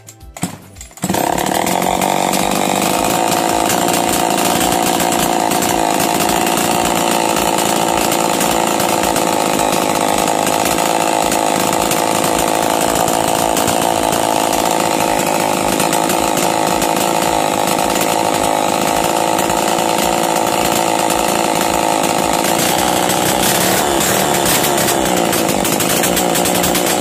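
Brush cutter's small two-stroke petrol engine catches about a second in and then runs steadily at a fast, even speed.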